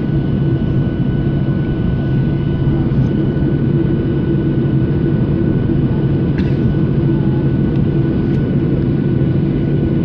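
Jet airliner's underwing turbofan engines at low taxi power, heard from inside the cabin: a steady low hum with a faint high whine.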